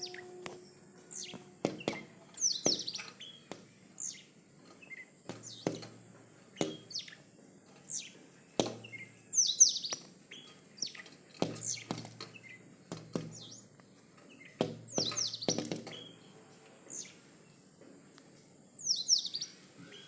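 A small bird calling in four clusters of rapid, high, falling chirps, a few seconds apart, with single chirps in between. Sharp clicks are scattered among the calls.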